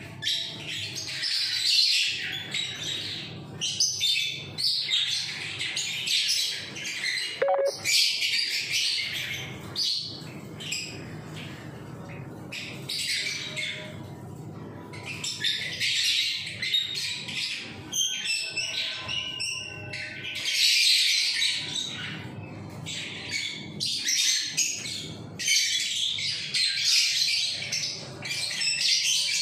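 A room full of caged small birds chirping and squawking together in a dense, continuous chatter that swells and fades in waves.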